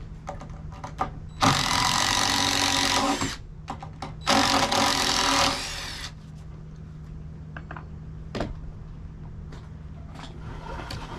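Cordless drill backing screws out of a timber beam, the motor running in two bursts, the first about two seconds long and the second about a second, with small clicks and knocks between.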